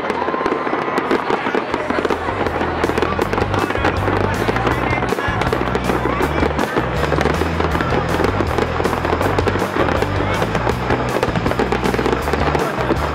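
A fireworks display: many shells bursting and crackling in quick succession, with music playing underneath.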